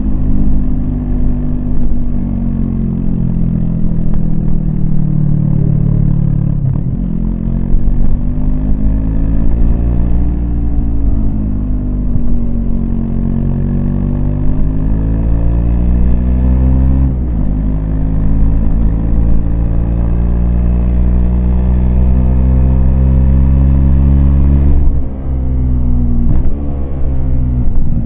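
Yamaha MT-25's parallel-twin engine running under way. Its revs climb and fall, broken by gear changes about a quarter of the way in, past halfway, and near the end.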